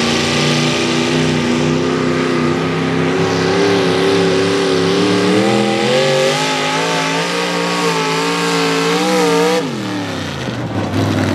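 Mini rod pulling tractor's engine at full throttle under load as it pulls the sled. Its pitch climbs steadily and wavers more and more, then the throttle is cut nearly ten seconds in and the engine winds down sharply.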